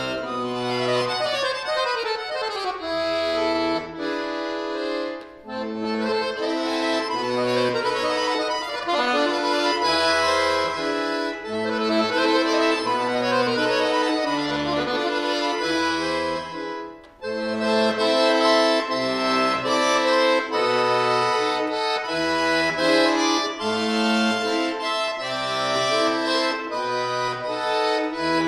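Chromatic button accordion (bayan) played solo: fast right-hand runs, quick descending ones near the start, over separate low bass notes, with two short breaks about five and seventeen seconds in.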